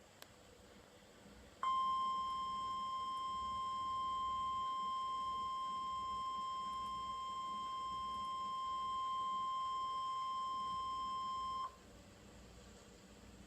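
NOAA Weather Radio warning alarm tone: a single steady 1050 Hz tone that starts abruptly about two seconds in and cuts off suddenly about ten seconds later. It alerts listeners that a warning broadcast, here a severe thunderstorm warning, is about to follow.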